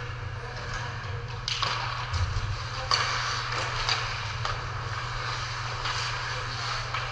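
Ice hockey play: skates scraping on the ice and a few sharp clacks of sticks and puck, over a steady low hum.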